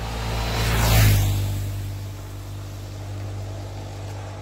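A road vehicle passes close by, its rushing noise swelling to a peak about a second in and then fading away. A steady low hum runs underneath.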